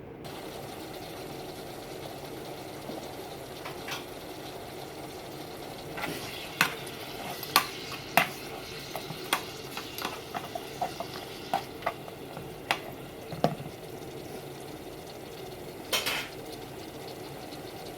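Pork frying in a pan with a steady sizzle, stirred with a utensil that clicks and knocks against the pan many times between about six and fourteen seconds in, then scrapes once briefly near the end.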